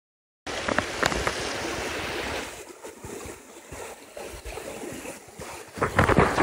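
Shallow creek water sloshing and splashing as a creek chub is swished through it by hand, with a few sharp splashes early on and a louder burst of splashing near the end.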